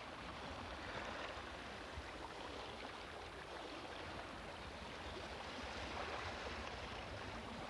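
Steady wash of open water, small waves lapping with no distinct splashes.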